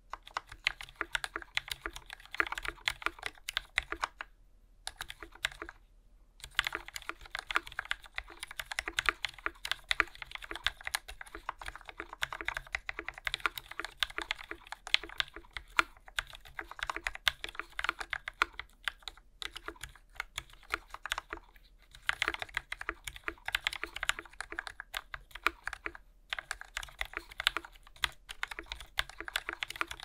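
Steady fast typing on a custom 60% mechanical keyboard fitted with Gateron Ink V2 linear switches lubed with Krytox 205g0, a polycarbonate plate and GMK keycaps, with a few short pauses.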